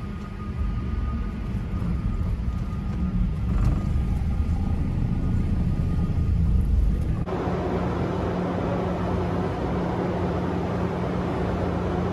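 Steady low engine rumble with a constant low hum, changing abruptly to a brighter, noisier rumble about seven seconds in.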